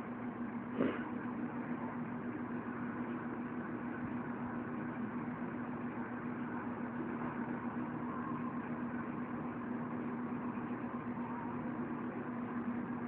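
Steady low electrical hum with background hiss, and a single knock about a second in.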